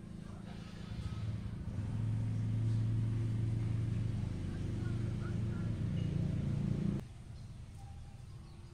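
A low, steady engine hum with a pitched drone grows louder over the first two seconds, holds, then cuts off suddenly near the end.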